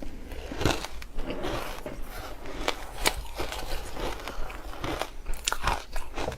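Ice being bitten and chewed close to the microphone: irregular sharp crunches, several a second.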